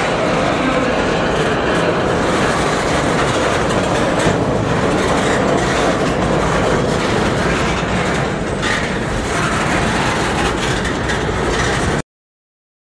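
Freight train cars rolling past on the track, a steady loud rumble mixed with heavy wind noise on the microphone. The sound cuts off suddenly near the end.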